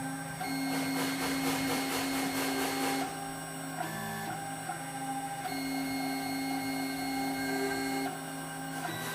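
Stepper motors of a 6040Z CNC router whining as its axes move. The pitch changes in steps each time a move starts, stops or changes speed, with a stretch of rapid pulsing a second or two in.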